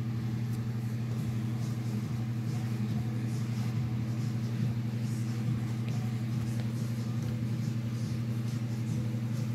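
A steady low mechanical hum, with faint rustles and light ticks of hands wrapping an elastic strap around folded sock fabric.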